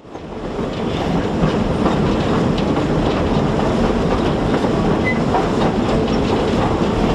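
Passenger train cars rolling along the track: a steady rumble of wheels on rail with scattered clicks, fading in over the first second.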